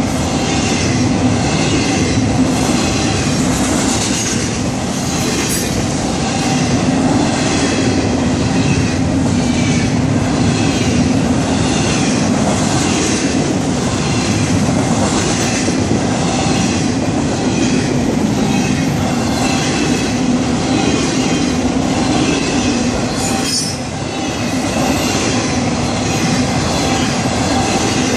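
A Florida East Coast Railway intermodal freight train's cars rolling past at a grade crossing: a loud, steady rumble with a regular clack from the wheels.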